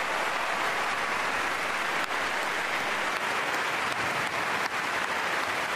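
Concert audience applauding: a crowd's steady, even clapping.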